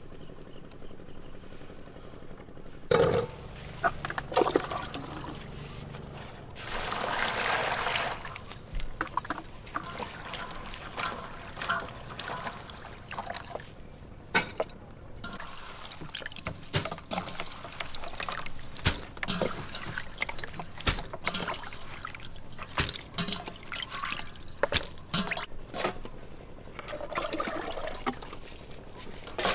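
Water pouring and splashing, loudest for a couple of seconds about seven seconds in, among scattered clicks and knocks of handling.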